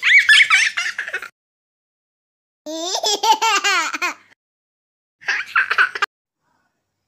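A baby laughing in three bursts: a high, squealing giggle at the start, a longer run of rhythmic laughs in the middle, and a short giggle near the end.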